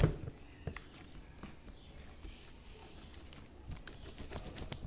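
Sticky, not yet fully activated glue slime being kneaded by hand, giving irregular small wet clicks and squelches, with a sharper knock at the start.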